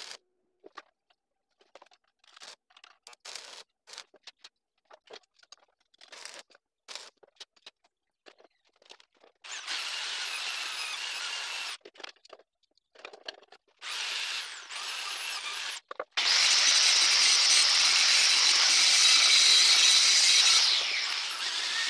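Arc-welding crackle and spatter in irregular bursts for about nine seconds, then a handheld electric drill running in two short spells, then an angle grinder grinding steel, the loudest sound, for about five seconds before it eases off near the end.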